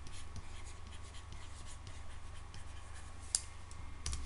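Faint scratching and tapping of pen strokes writing on a tablet, over a steady low electrical hum, with one sharp click a little over three seconds in.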